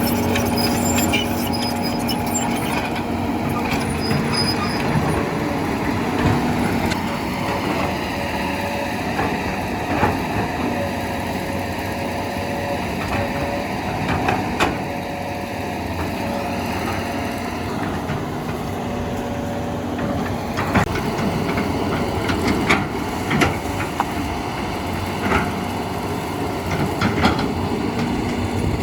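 Heavy machine engine running steadily, with scattered metallic knocks and clanks, several of them from about two-thirds of the way through.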